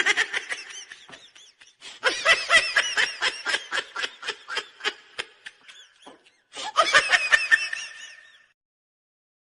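Laughter sound effect: three bouts of rapid, high-pitched, pulsing laughter, the longest in the middle, separated by short silent gaps.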